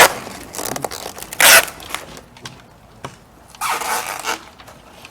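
Adhesive packing tape being pulled off the roll in rasping strips: a short loud pull about a second and a half in, then a longer pull of nearly a second a little past the middle, with quieter scraping between.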